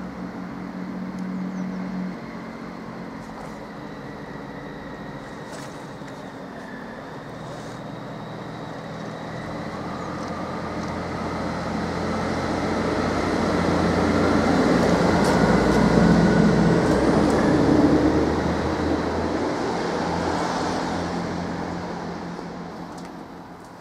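Diesel passenger train coming out of a tunnel and passing close by: its engine hum and wheel-on-rail noise build to a peak about two-thirds of the way in, then fade as it runs away.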